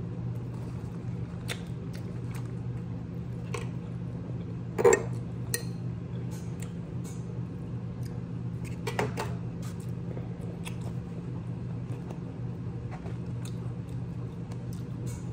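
Close-up eating sounds of a person eating tacos: chewing and mouth noises with scattered sharp clicks, a louder knock about five seconds in and a few more clicks near nine seconds. A steady low hum runs underneath.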